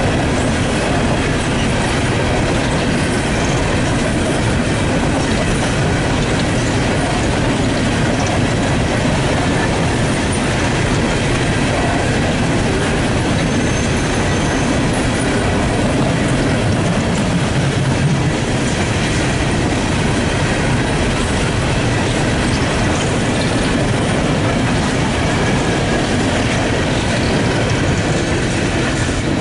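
Empty coal hopper cars of a freight train rolling past, a steady rumble and clatter of steel wheels on the rails.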